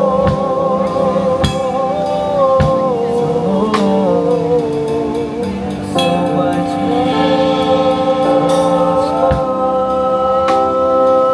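Music: a long, wavering sung vocal line with gospel-style runs over sustained chords, with occasional drum hits.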